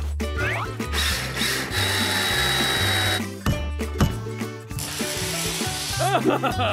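Cartoon workshop sound effects over background music with a steady bass line. A power tool whirs for a couple of seconds, a hammer strikes once about four seconds in, and then there is another short stretch of tool noise.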